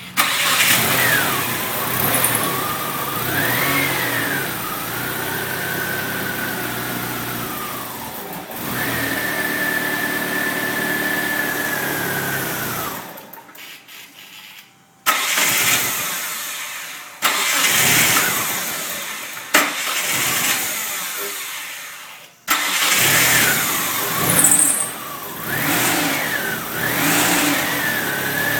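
Talon car engine started and run with revs rising and falling, then dying out about thirteen seconds in. It is restarted, cuts out again a few seconds later, and catches once more near the end, running with blips of the throttle: the hard starting and stalling the owner is showing.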